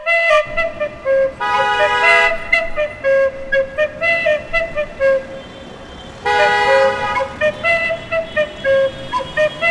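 Cartoon vehicle sound effects over a light flute-like background tune: a steady engine rumble with two long horn toots, about a second and a half in and again about six seconds in.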